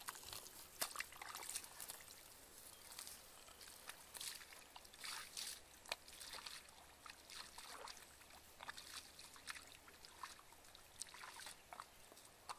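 Bare feet stepping through wet mud and shallow water among grass: faint, irregular squelches and small splashes.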